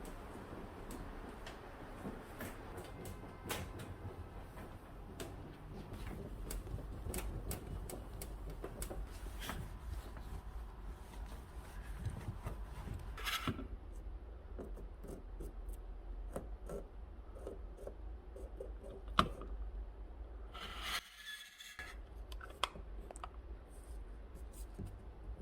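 Small household handling sounds: scattered light clicks and taps with some rubbing and scraping of objects being moved about, over a low steady hum.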